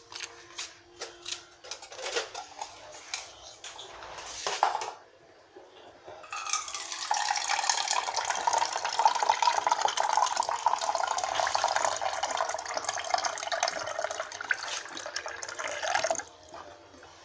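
A few clicks and knocks of handling, then water running steadily from a kitchen water dispenser into a cup for about ten seconds, stopping abruptly.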